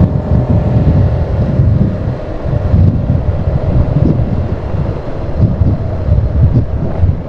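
Off-road vehicle engine running on a trail ride, with wind buffeting the microphone. A faint steady whine runs under an irregular low rumble.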